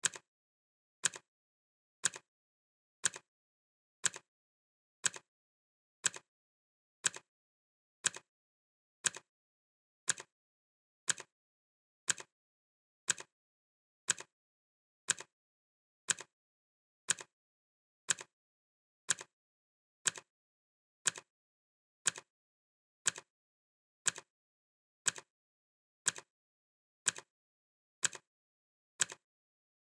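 Clock ticking sound effect, one sharp tick each second, each followed closely by a fainter click, keeping time for a countdown timer.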